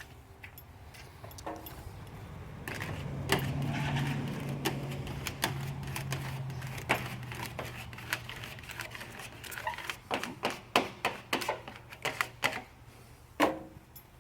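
Sharp clicks and taps of handling on a work surface while vinyl lettering is being applied, coming fastest in the last few seconds, over a steady low hum through the middle.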